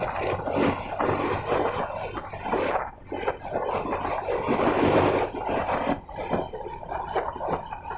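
Road noise from travelling in traffic: a rushing noise with a faint engine hum underneath, swelling and easing with brief dips.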